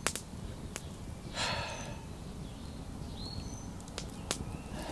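Wood campfire burning with a steady low rush and a few sharp crackling pops, plus a short breathy hiss about a second and a half in.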